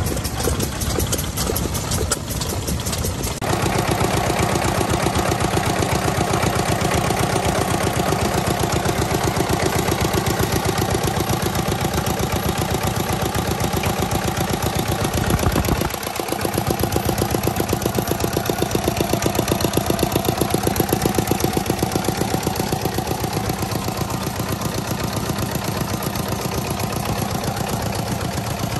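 An old Yanmar single-cylinder diesel engine running with slow, separate beats. About three and a half seconds in, a small red Yanmar horizontal single-cylinder diesel idles steadily with an even, fast beat. A brief break comes just before sixteen seconds, and then another such diesel runs on steadily.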